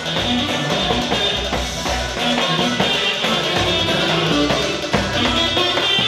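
Live dance music with a large double-headed bass drum (davul) beaten with a stick, over a steady beat and a melody line.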